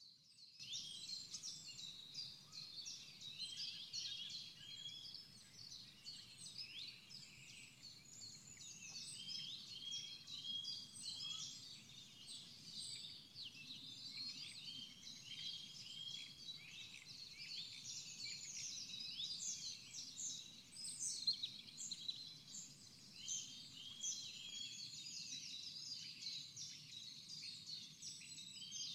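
Many birds singing at once: a dense chorus of overlapping short chirps, whistles and trills, over a faint low background hum.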